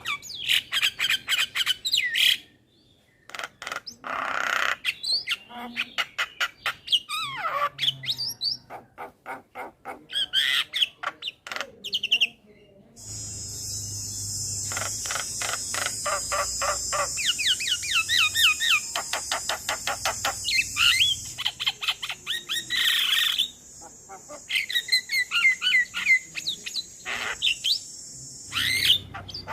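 Male Javan myna calling: a varied run of short rapid notes, swooping whistles and harsh squawking chatter with brief pauses. From about halfway a steady high hiss runs beneath the calls until near the end.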